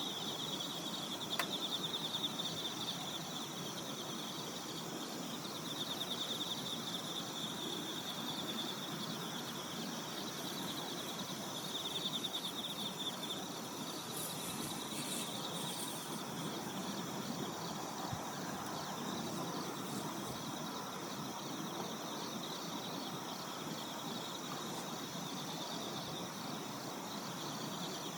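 A chorus of night insects trilling steadily, high-pitched and finely pulsing, loudest in the first half, over a soft even outdoor background.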